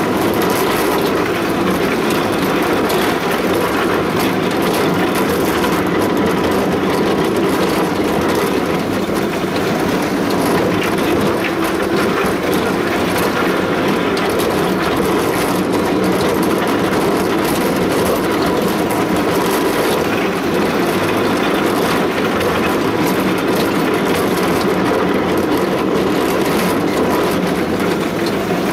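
Small children's fairground ride train running along its track, with a steady, even rumble throughout.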